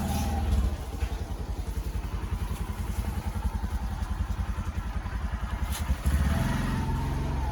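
Motorcycle engine catching right at the start and then running with a fast, even low beat, getting louder with a change of note about six seconds in as it is revved.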